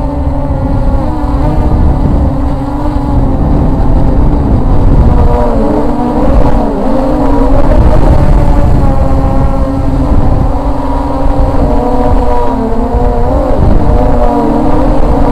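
Walkera Scout X4 quadcopter's motors and propellers whirring in flight, several tones shifting up and down in pitch, over heavy wind rumble on the onboard microphone.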